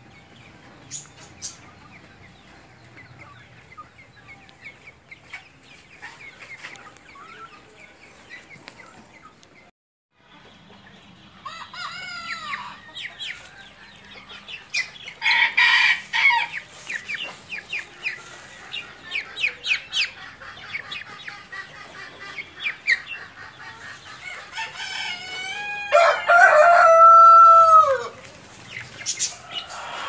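Silkie chickens clucking and peeping. The calls are faint at first, then louder and busier after a break about a third of the way in. Near the end a rooster crows once, the loudest sound.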